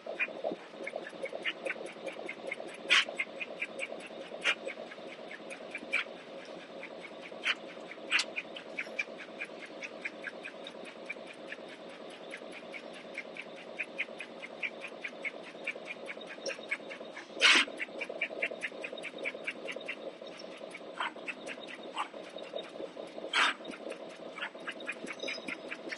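CNC turret punch press hitting sheet metal in a rapid, even train of punch strokes, several a second, with a few much louder hits among them, over the steady hum of the machine.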